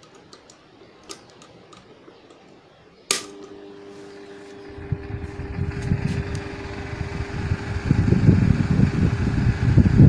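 A few light clicks, then a sharp switch click about three seconds in as the repaired table fan is turned on; its motor starts a steady hum and the blades spin up, the rush of air growing louder through the rest.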